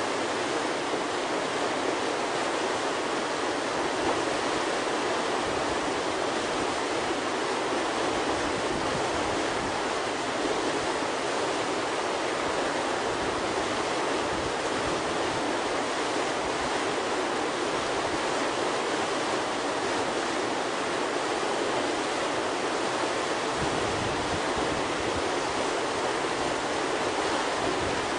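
River whitewater churning through a standing wave and hole: a steady, even rush of water.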